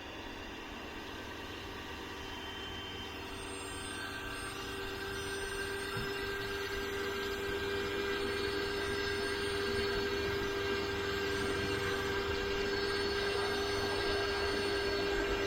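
Pressure washer running steadily, its motor and pump giving a constant whine over the hiss of the water spray, gradually growing louder.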